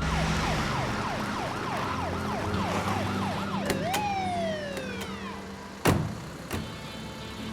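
Police car siren in a rapid yelp, then winding down in one long falling wail as the car pulls up and the siren is cut. A sharp thump follows, with a lighter knock just after.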